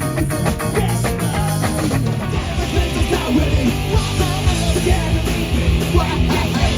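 Live punk rock band playing loud, with drums, bass and electric guitar.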